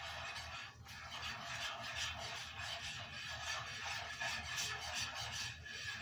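A utensil scraping and stirring round a cast iron skillet, a fast, continuous scratchy rasp, as a flour roux is stirred while it cooks on the stove.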